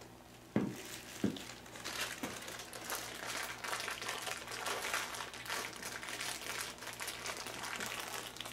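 Two sharp knocks about two-thirds of a second apart, then continuous crinkling and rustling of packing material being handled.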